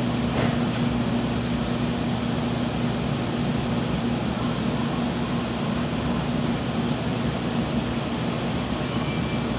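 A JR Kyushu 811 series electric train standing at the platform with its onboard equipment running: a steady low hum over an even rushing noise.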